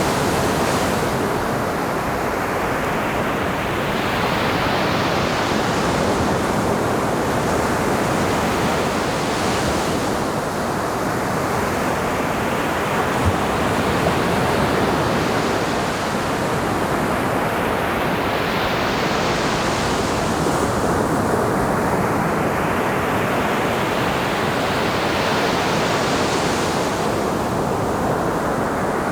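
Ocean surf on a beach: a continuous rush of breaking and washing waves that swells every several seconds as each wave comes in.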